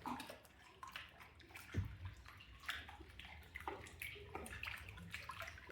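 Quiet lapping and dripping of river water around a kayak, with scattered small splashes.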